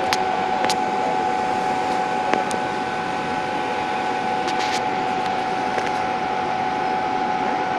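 CNC laser cutter running while it cuts ornamental shapes from a sheet: a steady mechanical whir with a constant high whine, and a few faint ticks.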